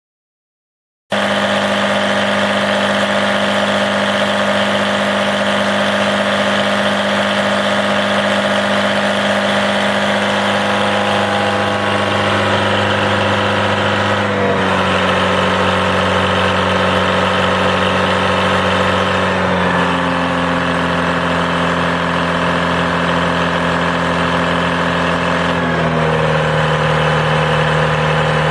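Detroit Diesel 4-71 two-stroke diesel engine of a portable generator running steadily, starting suddenly about a second in. Its pitch steps slightly lower a few times along the way.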